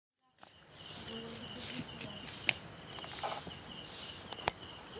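Crickets chirring steadily in the dark at two high pitches, with a sharp click about halfway through and another near the end.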